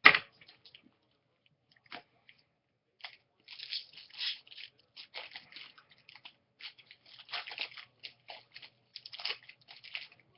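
Crinkling and tearing of a foil trading-card pack wrapper as it is opened and the cards are handled, in many short crackly bursts. A single sharp knock at the very start is the loudest sound.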